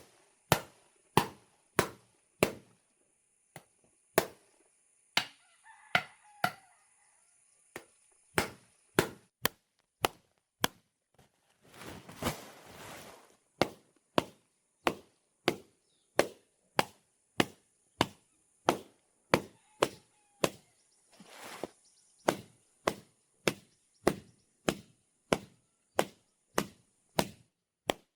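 Steady, even chopping with a blade, about one and a half strokes a second, pausing twice for a brief rustling stretch before picking up again.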